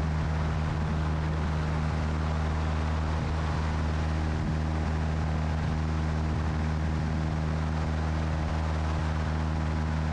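Single-engine light aircraft in flight: the piston engine and propeller running with a steady, even drone and a constant low hum, mixed with airflow noise.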